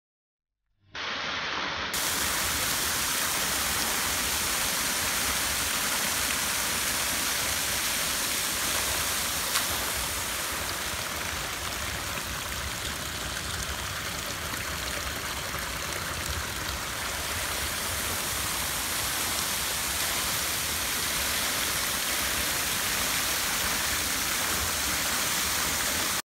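Flowing water: a shallow stream running over pebbles and a small waterfall pouring over a rock ledge into a pool, a steady rush that starts suddenly about a second in.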